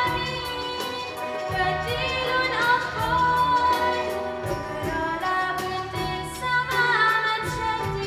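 A girl singing an Arabic song into a microphone, backed by a small live band with a steady beat.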